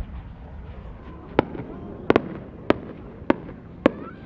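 Fireworks: sharp cracks and pops going off at uneven intervals, six of them in about two and a half seconds starting a little over a second in, with a pair in quick succession in the middle, over a low steady background noise.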